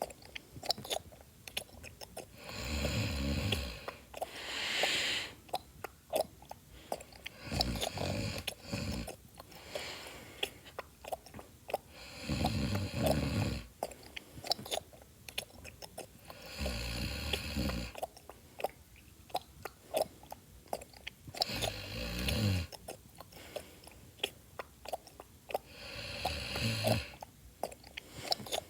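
Loud close-up chewing, a steady run of wet clicks and smacks. About every four to five seconds a low snore rumbles for a second or so.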